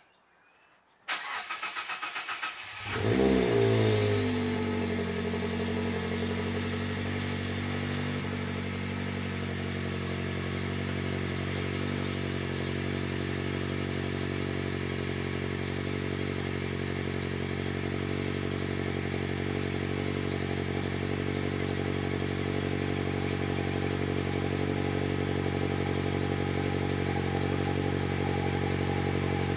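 Mazda MX-5 ND 2.0-litre inline-four cold-starting through a GReddy Supreme SP axle-back exhaust: about a second in the starter cranks briefly and rhythmically (a longer crank because it runs on E85), then the engine catches with a short rev flare and settles into a steady idle.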